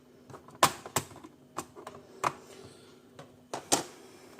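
Irregular sharp clicks and taps from handling the small plastic and metal parts of an open laptop, about five in all, the loudest about two-thirds of a second in and near the end, over a faint steady hum.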